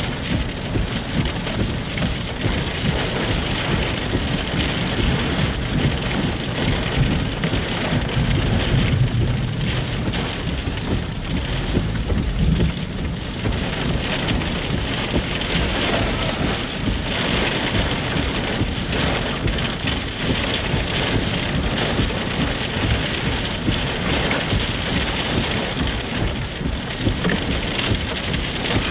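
Heavy rain from a tornadic thunderstorm beating steadily on the car, with a low rumble swelling for a few seconds about a third of the way in.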